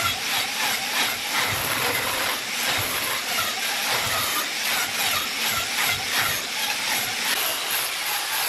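Handheld angle grinder grinding into the wood of a large vase's rim: a steady, hissing grind whose level wavers as the disc is worked over the wood.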